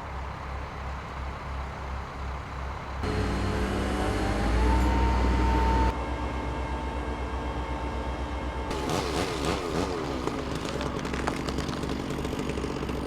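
Heavy engine of a mobile crane running with a steady low throb. About three seconds in it gets louder and a whine rises and holds a steady pitch, then drops back abruptly near six seconds.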